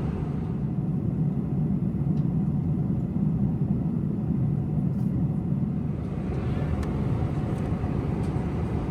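Steady rumbling cabin noise of a Boeing 747-400 airliner in cruise, the drone of airflow and engines, with a few faint light clicks.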